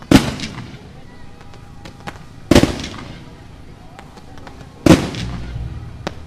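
Aerial fireworks shells bursting: three loud booms about two and a half seconds apart, each trailing off in an echo, with scattered smaller pops and crackles between them.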